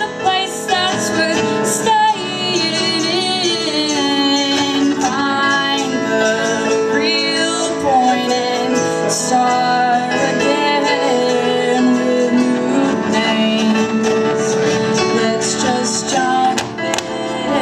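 Live acoustic music: a woman's voice singing with wavering, held notes over a strummed acoustic guitar and keyboard.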